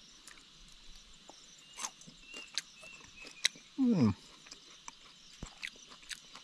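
A person chewing a woodworm larva: a run of sharp crunching clicks over a steady high chirring of crickets. About four seconds in, a short falling vocal "mm".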